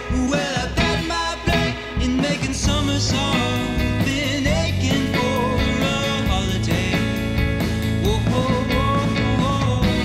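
A rock song with singing and guitar over a steady beat.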